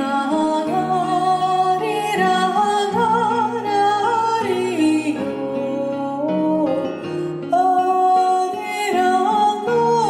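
Slow background music with sustained, held notes that change about once a second.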